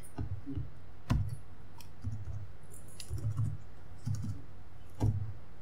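Irregular clicks and light knocks from a laptop's keys and mouse being worked, about seven in all, the loudest about a second in and another near the end, over a steady low electrical hum.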